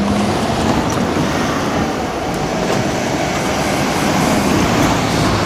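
Kintetsu electric train passing over the level crossing: a steady, loud rush of wheel and rail noise.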